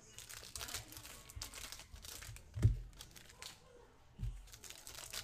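Foil trading-card pack wrappers crinkling and tearing as packs are handled and opened by hand, with a sharp thump about two and a half seconds in and a softer one near the end.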